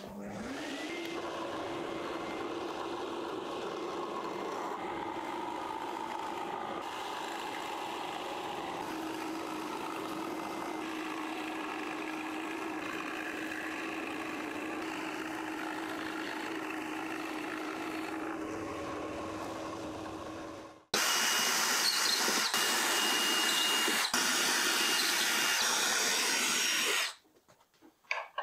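Benchtop drill press spinning up and running steadily while its bit bores out the waste in a wooden tray's pockets. About 21 seconds in, a louder, brighter machine noise cuts in abruptly and stops just as abruptly about six seconds later.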